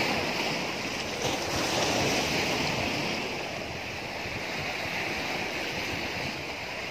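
Sea surf washing against a rock breakwater, a steady noise of waves that swells and eases, with some wind on the microphone.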